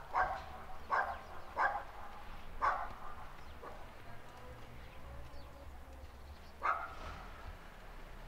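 A dog barking: four barks in about the first three seconds, then a pause and one more bark later on.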